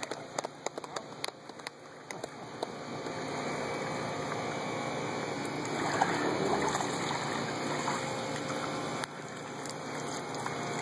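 Swimming-pool water sloshing and splashing as a man wades through waist-deep water and climbs out, with water running off him. It starts as scattered small splashes, then turns to steadier sloshing that grows louder a few seconds in as he reaches the edge.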